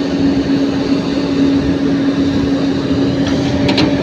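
Heavy-machinery diesel engine running steadily at constant speed, with one unchanging hum-like tone through it.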